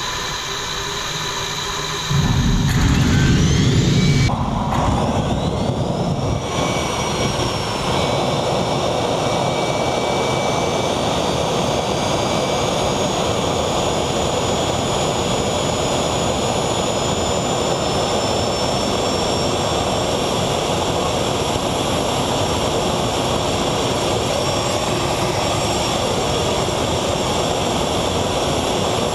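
Small turbojet engine starting on hawthorn tincture, a medicinal alcohol, with no kerosene: a loud low rumble for about two seconds, a whine rising in pitch as it spools up, then steady running with a high whine over a loud rush.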